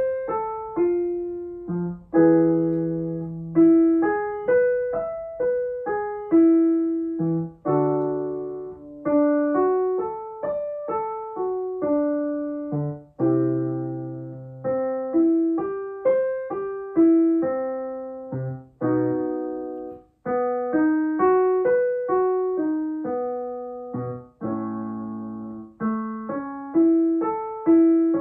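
Piano playing a vocal warm-up accompaniment: quick runs of single notes up and down an arpeggio, with sustained chords every few seconds between the runs.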